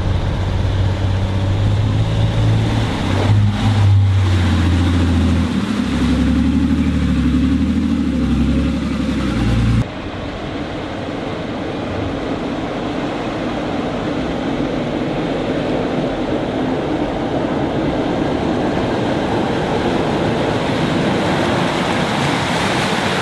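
Off-road SUV driving through a river ford: engine running with water rushing and splashing. For the first ten seconds strong low tones shifting in pitch lie over it, then cut off abruptly, leaving the steady rush of water and engine.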